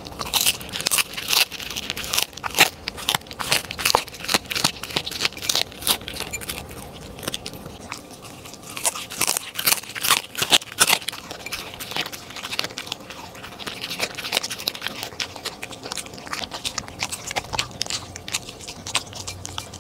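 A corgi crunching and chewing crumbly food off a plate: many quick, crisp crunches, busiest in the first few seconds and again about halfway. Near the end it licks the crumbs off the plate.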